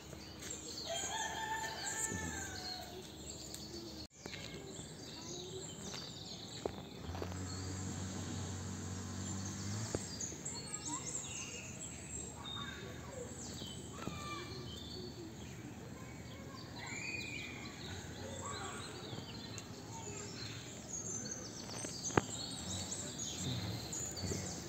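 Outdoor birdsong, with many short chirps and calls throughout and a rooster crowing about a second in.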